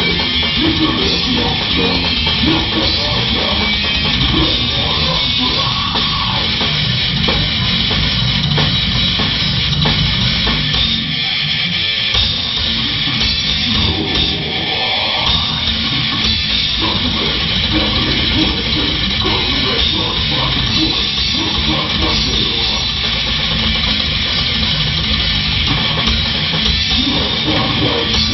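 A band playing technical death metal live, with distorted electric guitars, bass and a drum kit at full tilt, and a vocalist growling into the microphone.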